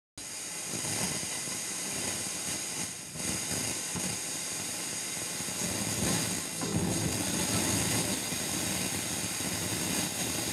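Unitra DSP-301 Duet radio receiver giving out a steady rush of static and hiss as its tuning knob is turned between stations. The sound cuts in suddenly just after the start and dips briefly twice.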